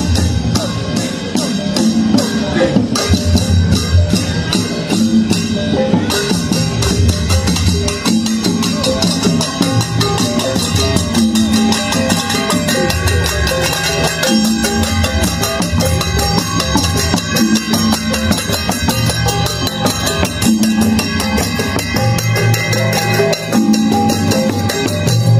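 Processional gamelan music: a fast, steady beat of struck percussion with recurring deep gong tones.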